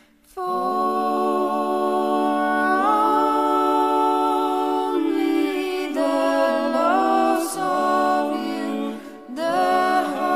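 Background music with a singing voice: long held notes that glide from one pitch to the next, starting about half a second in after a brief gap.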